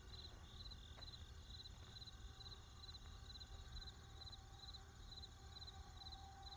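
Faint night ambience of crickets chirping, a little over two chirps a second, over a low hum; near silence overall.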